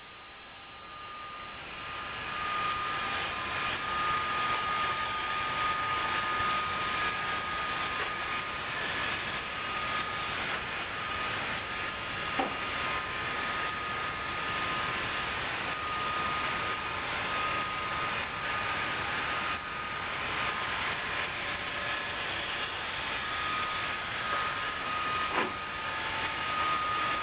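Roomba robot vacuum running: a steady motor and brush whir with a thin high whine, getting louder over the first couple of seconds and then holding even, with two faint knocks.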